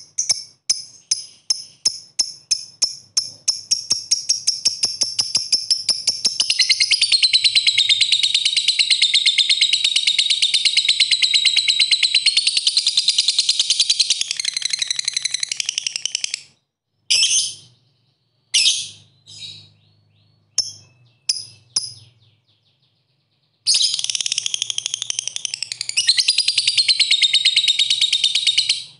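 Fischer's lovebird's high, shrill chatter. It opens with a string of separate sharp chirps (the typing-like 'ngetik') that speed up and run together into a long unbroken rapid trill (the 'ngekek'). After that come a few short bursts, then a second long trill near the end.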